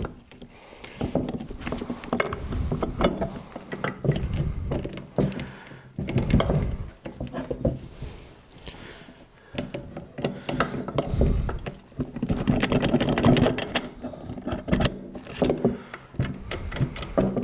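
Irregular metallic clicks and clacks of a 1995 Honda XR250R's transmission shafts and gears being worked into the crankcase half, the gear teeth meshing and the shafts seating into their bearings.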